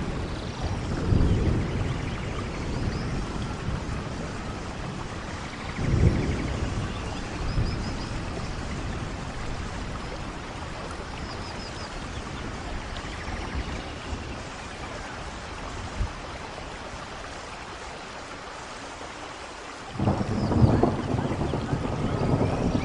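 Steady rain with rolling thunder: low rumbles swell and fade several times, with a short sharp crack of thunder about two-thirds of the way through, and a louder, longer rumble breaking in near the end.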